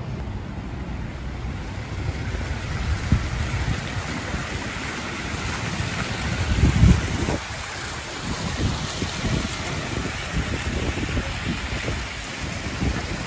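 Water jets of a plaza fountain splashing into a shallow pool in a steady hiss, with wind buffeting the microphone in low rumbling gusts, strongest about seven seconds in.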